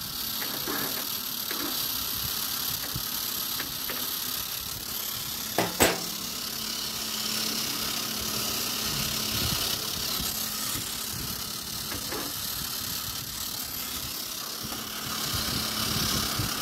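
Agarbatti making machine's electric motor running steadily on a test run, pushing masala paste out through the die after the die hub was tightened, with one sharp click about six seconds in.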